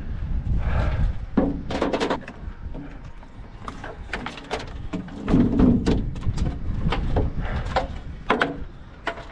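A string of irregular sharp knocks and clatters, a dozen or more, over a steady low rumble.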